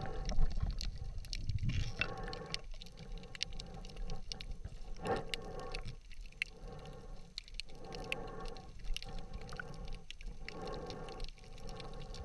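Underwater sound picked up by a diver's action camera: a muffled wash of water with scattered sharp clicks, and a humming tone that swells and fades about every second and a half.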